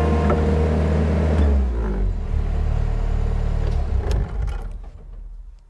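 Engine of a small caged-cab loader running, heard from inside the cab; its revs drop about a second and a half in, then it is switched off and runs down to a stop around four to five seconds in, with a click near the end.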